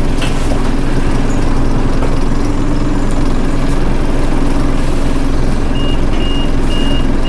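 Inside a Scania OmniCity single-deck bus: its Scania DC9 diesel and ZF automatic driveline run with a loud, steady rumble and a steady hum, on a bus whose differential is broken. From about six seconds in, a run of short, high electronic warning beeps repeats about twice a second.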